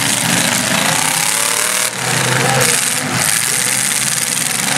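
Demolition derby stock cars' engines running and revving, one rising and falling in pitch about a second in, over a dense, steady wash of noise.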